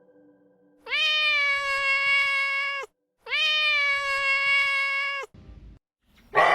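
An animal calling twice. Each call is long and high, about two seconds, rising sharply at the start, held at a steady pitch and dropping off at the end.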